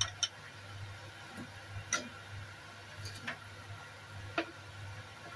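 Ceramic bowls being moved and set down on a wooden cutting board: about five light, sharp clicks and knocks, irregularly spaced about a second apart, over a low steady hum.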